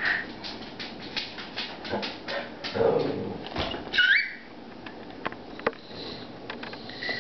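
A small dog whining, with a short high yelp that rises in pitch about four seconds in, among scattered light taps and clicks.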